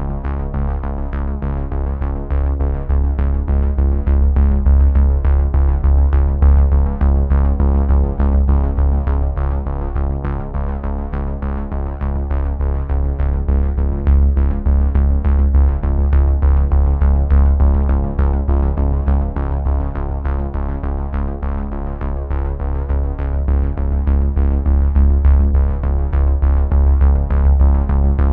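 Synthesizer music with a steady beat and a deep, strong bass line.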